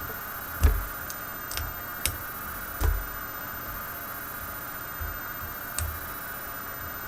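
Lock picks working in a Master Lock Pro Series 6850 padlock during single-pin picking: a few scattered small clicks and light knocks of the pick, tension wrench and padlock being handled, over a steady hiss.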